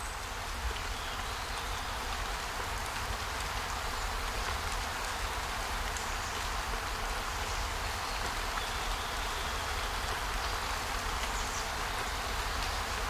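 Steady rushing water with a low rumble underneath and a few faint, short high chirps.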